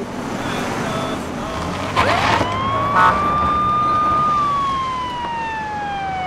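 Police car siren winding up about two seconds in, then wailing: the pitch holds high, then slowly falls. Vehicle and road noise underneath.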